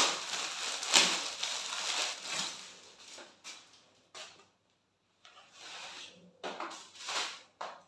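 Packaging rustling and crinkling as a new T-shirt is unwrapped by hand: a sharp crackle right at the start, steady rustling for about three seconds, then short scattered rustles.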